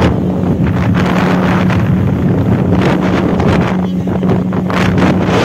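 Speedboat motor running at a steady low drone, with heavy wind buffeting the microphone as the boat moves across the water.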